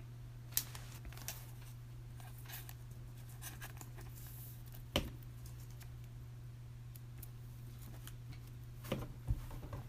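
Faint handling of trading card packs and cards: a few short crinkles and clicks, the loudest about five seconds in and a small cluster near the end, over a steady low hum.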